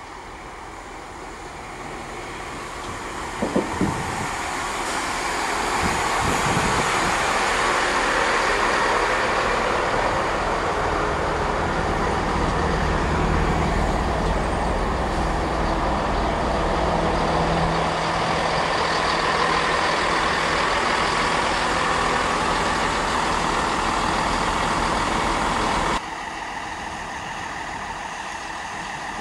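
Chiltern Railways Class 165 diesel multiple unit approaching and running past close by: the diesel engine drone and wheel noise grow louder over the first few seconds, with a few sharp clicks about three and a half seconds in, then hold steady as the carriages go by. Near the end the sound drops abruptly to a quieter, steady run.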